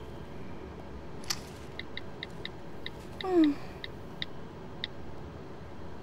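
Smartphone keypad tones: a run of about ten short high beeps as keys are tapped, quick at first, then slower. A brief falling hum from a woman's voice about three seconds in.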